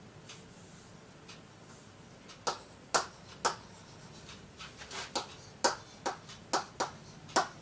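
Stylus tip tapping and clicking on the glass of an interactive touchscreen board while writing: about ten sharp, irregular taps, mostly from about two and a half seconds in, roughly two a second.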